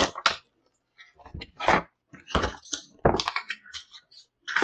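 A cardboard shipping box and its packaging being opened by hand: irregular bursts of rustling and scraping with a few sharp clicks, separated by short pauses.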